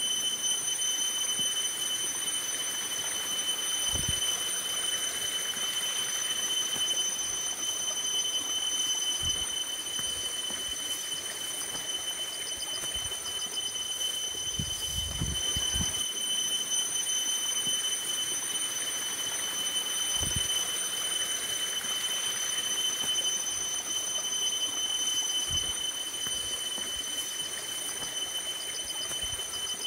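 Steady, high-pitched drone of insects, several pitches held unbroken over a soft hiss, with a few short low thumps.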